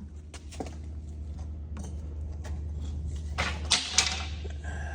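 Small handling clicks and soft rustling of first-aid packaging, with two brief louder crinkling bursts about three and a half and four seconds in, over a steady low hum.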